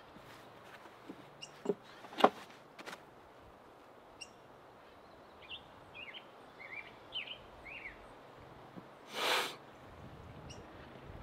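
A few sharp knocks and clicks from gear being handled about two seconds in, then a songbird giving a series of short, downward-sliding chirps, and a brief rustling swish near the end.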